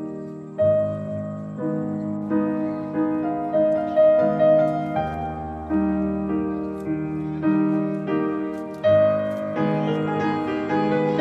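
Background piano music: a melody over chords, each note struck and then fading.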